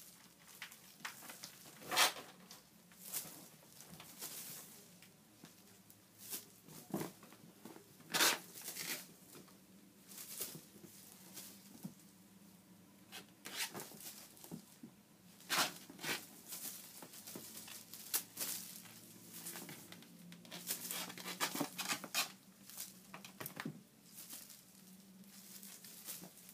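A European Burmese kitten playing on a cloth-draped sofa: irregular rustles, scratches and soft thumps from its paws and claws on the fabric as it jumps and swats, a few of them sharp and crackly.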